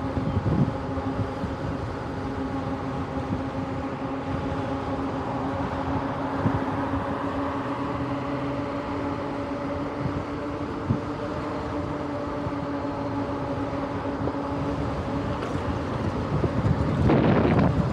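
Electric conversion-kit motor on a mountain bike whining steadily at speed over tyre and wind noise. Near the end a louder rough rumble as the tyres cross brick pavers.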